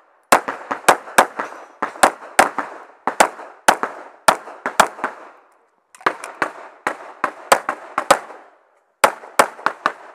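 Semi-automatic pistol firing rapid strings of shots, many in quick pairs about a quarter second apart, each shot with a short ring after it. The firing breaks off twice for a moment.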